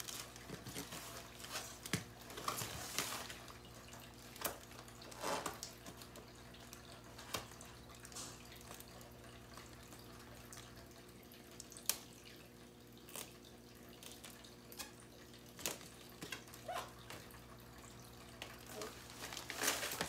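Plastic wrapping rustling and crinkling now and then as a long plastic-wrapped package is handled and lifted, over a steady low hum.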